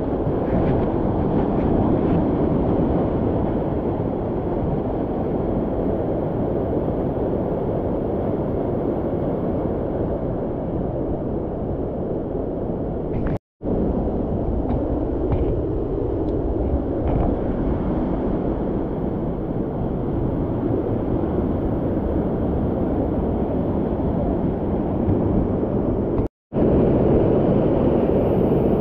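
Steady rush of water in a mountain canyon torrent, an even low noise with no speech, cut off twice for a moment, about halfway through and near the end.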